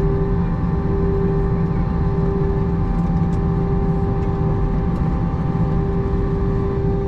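Steady cabin noise of an Airbus A321 airliner: an even roar of engines and airflow with a constant droning hum.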